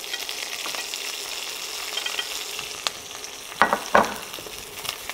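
Sliced green onion, garlic and ginger sizzling steadily in hot oil in a wok, a little past the middle broken by two sharp knocks of a utensil against the pan.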